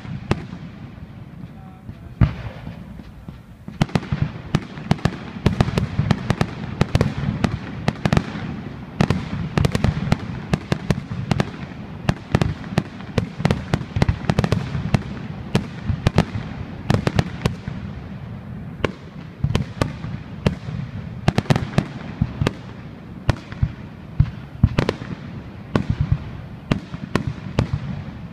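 Fireworks display: a sharp bang at the start, then from about four seconds in a dense, continuous barrage of bangs and crackles, several reports a second, over a steady low rumble.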